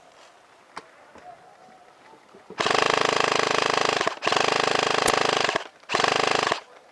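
Airsoft WE MSK electric rifle, powered by an 11.1 V LiPo, firing on full auto: three long, fast bursts in a row, the last one shorter, with a steady high rate of fire.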